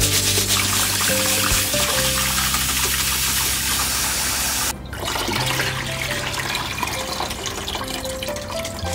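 Tap water running into a steel bowl of rice being rinsed, under background music. The running water cuts off suddenly about five seconds in, and quieter sloshing and dripping follow.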